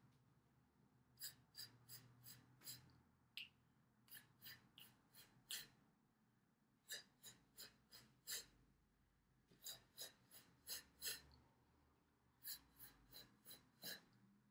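Faint voiceless 'f' puffs of breath, pulsed in five runs of about five or six quick pulses each, about four a second, with short pauses between runs. This is the singer's F-pulse breath-support exercise: light, candle-flickering pulses of air driven from the abdominals while the ribcage is held stable, as training for staccato.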